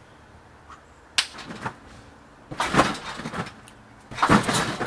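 Person bouncing on a trampoline: a sharp knock about a second in, then two landings on the mat about a second and a half apart, each a thud followed by a rattling rustle.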